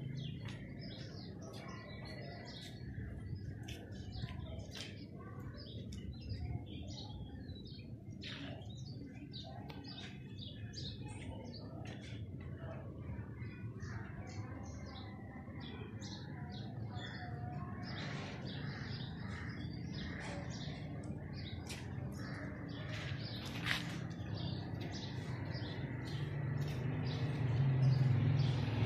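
Many small birds chirping and calling in short, scattered notes over a steady low background rumble, which grows louder near the end.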